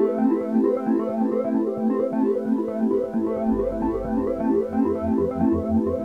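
Background music: a fast, repeating synthesizer keyboard pattern, joined by a pulsing bass line about three seconds in.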